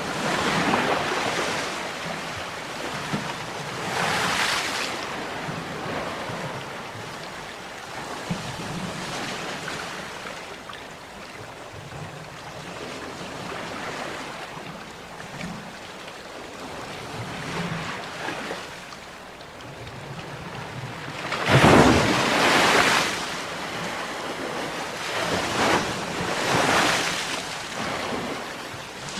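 Sea waves washing in, swelling in surges every few seconds over a constant wash of surf; the loudest surge comes about two-thirds of the way through.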